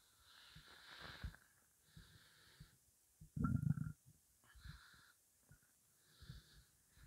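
A hungry, empty human stomach gurgling and rumbling in several short, irregular bouts, the loudest about halfway through; all it holds is water.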